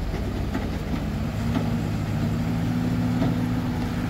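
Truck's diesel engine running steadily.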